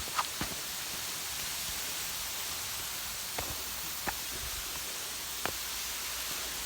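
Waterfall rushing steadily, running low after a dry spell, with a few faint clicks over it.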